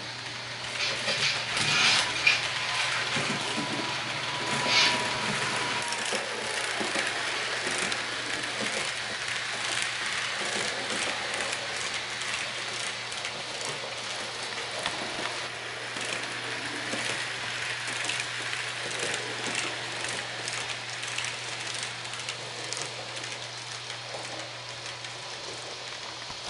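Märklin model train running along the layout's track: a steady rattle with many small clicks as the wheels run over rail joints and points. There are a few louder knocks in the first five seconds, and a faint steady tone fades out about six seconds in.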